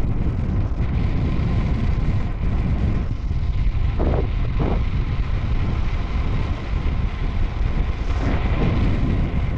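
Wind rushing and buffeting over the microphone of a camera carried on a moving bicycle: a loud, steady noise heaviest in the low end.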